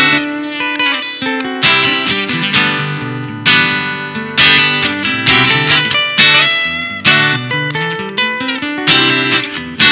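Solo acoustic guitar playing an instrumental piece: chords struck about once a second, each ringing out and fading before the next.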